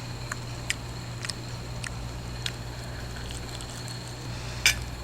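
Faint, scattered clicks of chewing and mouth sounds from someone eating fried food, a few per second at irregular spacing, with a slightly stronger click near the end, over a steady low hum.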